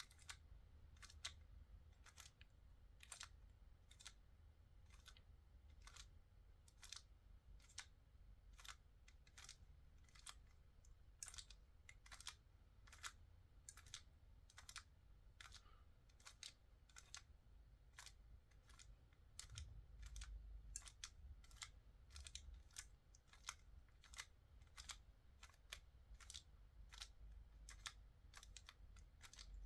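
Faint plastic clicks of a 3x3 Rubik's cube's layers being turned, an irregular string of one or two clicks a second.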